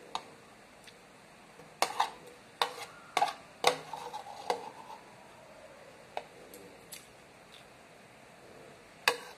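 Metal spoon and fork clinking and scraping against a white bowl while eating, in a quick cluster of sharp clinks from about two to four and a half seconds in, then a few single clinks later.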